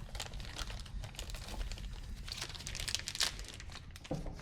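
Plastic packaging crinkling and crackling as it is handled and pulled open, in a steady run of small crackles.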